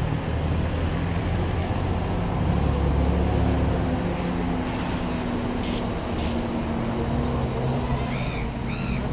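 Street traffic: a heavy vehicle's engine running with a steady low hum, with a few short hisses in the middle, like air brakes. Crows start cawing near the end.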